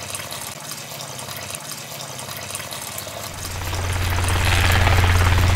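Water trickling softly in the aquarium. About three seconds in, the small electric motor that turns the model helicopter's rotor starts up, running as a loud steady low hum with a rapid chopping pulse.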